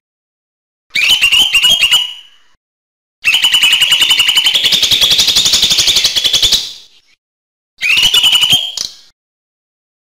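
Lesser green leafbird (cucak hijau mini) singing in three bursts of rapid chattering notes: a short phrase about a second in, a long fast trill of about three and a half seconds in the middle, and another short phrase near the end, with dead silence between them.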